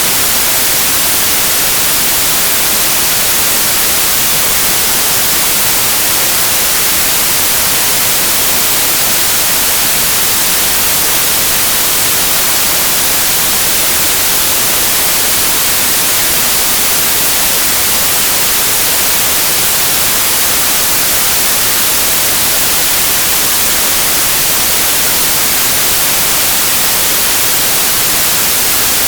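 Steady, loud white noise: an even hiss, brightest in the high pitches, with no change or break.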